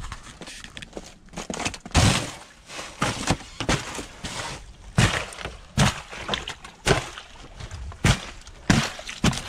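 A boot stomping again and again on a sheet of thin ice over a frozen puddle, cracking and breaking it. The sharp cracks and thuds come about one or two a second, the loudest about two seconds in.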